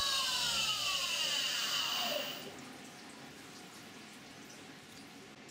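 CNC milling machine spindle winding down after drilling: its whine falls in pitch and fades over about two seconds. Then coolant drips and trickles off the wet workpiece.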